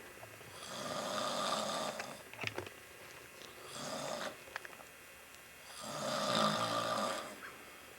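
A man snoring in a steady rhythm, three snores a few seconds apart, with a few soft clicks about two and a half seconds in.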